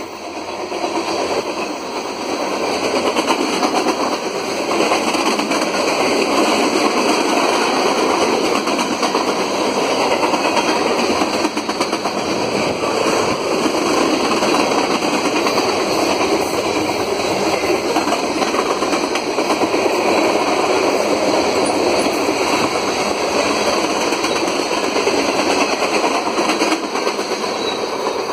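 Freight cars of a fast-moving train rolling past close by: a steady rush and rattle of steel wheels on rail with rapid clicking.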